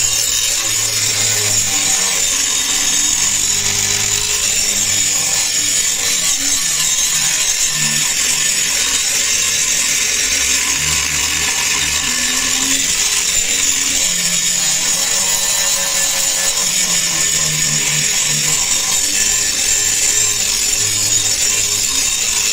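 Electric angle grinder with an abrasive disc grinding the rusted steel face of an antique hog-splitter meat cleaver blade, running steadily with a high whine over the rasp of the disc on the metal.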